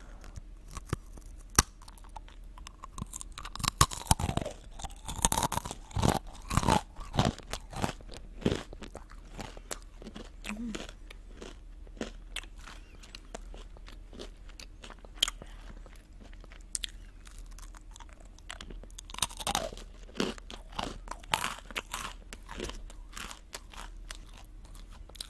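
Close-miked bites and chewing of a crunchy salted pretzel: clusters of sharp crunches near the start and again later on, with softer chewing in between.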